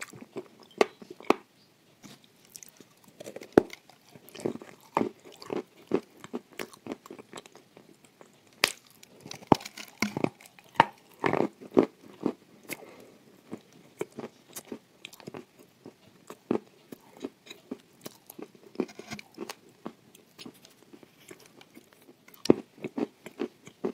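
Chewing and biting of crumbly dry edible clay eaten with chocolate paste: irregular sharp crunches and clicks, with a dense run of crunching about ten seconds in.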